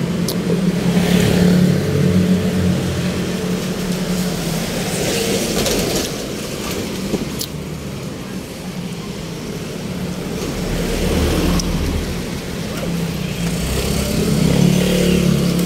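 Street traffic: motor vehicle engines running close by, with a steady engine hum near the start and again near the end, and a deeper rumble about ten seconds in.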